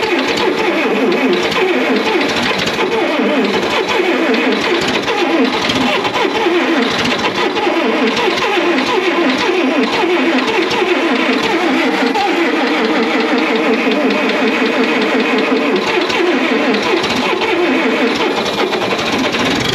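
Massey Ferguson MF711 skid steer's Wisconsin V4 engine running just after a cold start on starting fluid, its pitch wavering up and down as it settles.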